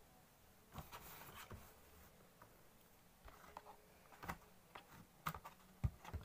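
Light handling noises of a papercraft model train being slid by hand over a paper-covered surface: a soft scrape about a second in, then a few sharp taps and knocks near the end.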